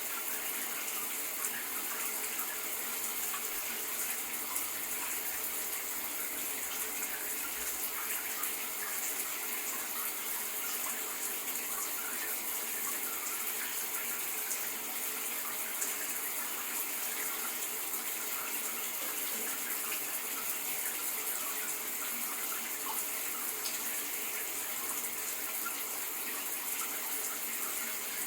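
Shower running, a steady, unbroken hiss of spraying water.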